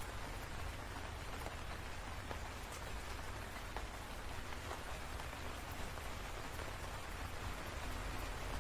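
Steady rainfall: an even hiss of rain with scattered faint drop ticks over a steady low rumble.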